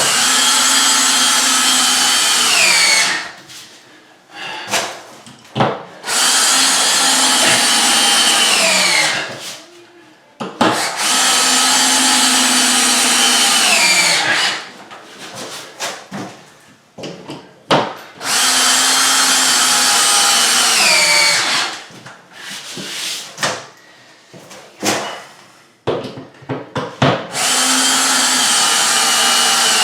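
Power drill driving screws through cement backer board into wall studs, in five runs of about three seconds each. The motor's pitch drops near the end of every run as the screw draws tight, and there are short handling clicks between screws.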